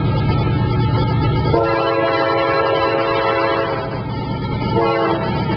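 Diesel locomotive air horn on an approaching freight train: one long blast of about two seconds, then a short blast near the end. A low steady rumble comes before the horn.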